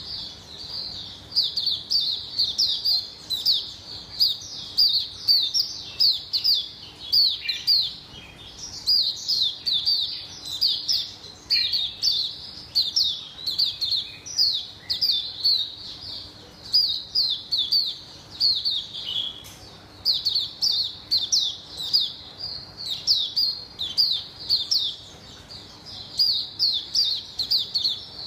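Caged white-eye (mata puteh) singing a long, rapid run of high chirping notes, in phrases broken by short pauses.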